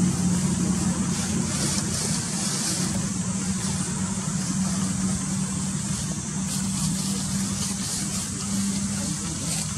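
Steady low hum of an idling engine, running evenly throughout.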